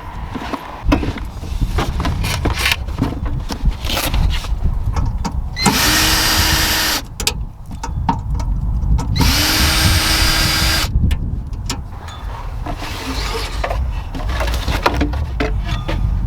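A cordless drill run twice for about a second and a half each, its motor ramping up and winding down, among knocks and clatter of fittings being unscrewed and lifted out.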